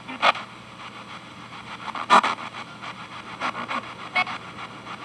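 P-SB7T spirit box sweeping through FM radio stations, played through a small Esteban G-10 guitar amp and a noise-gate pedal: a low hiss broken by short snatches of station sound, the loudest about two seconds in.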